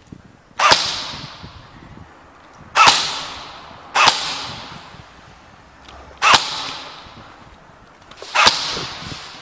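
Airsoft gun fired in single shots: five sharp cracks at uneven intervals, each trailing off in about a second of echo.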